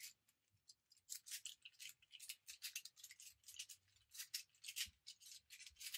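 Plastic infinity cube being folded over and over, its hinged blocks making a run of faint, quick clicks and scrapes, about two to three a second.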